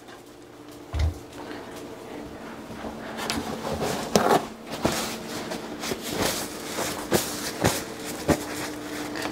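A dull thump about a second in, then a building run of rustling and sharp clicks as a paper towel is handled, over a faint steady hum.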